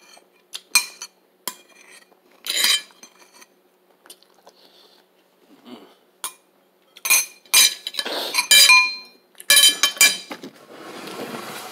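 Cutlery clinking against a dish: a series of sharp clinks, some with a brief ringing, sparse at first and coming thick and loud in a cluster about seven to ten seconds in, then a softer scraping rustle near the end.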